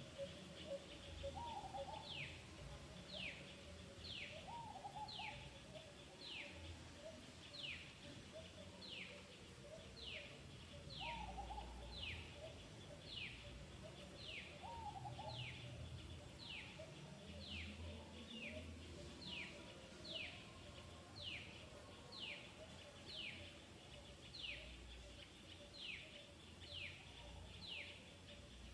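A bird calling a short falling whistle over and over, about once a second, against faint outdoor background noise.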